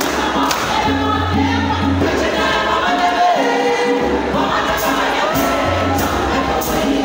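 Church choir singing a lively gospel song over a repeating low bass line. Sharp, regular claps keep time through the second half.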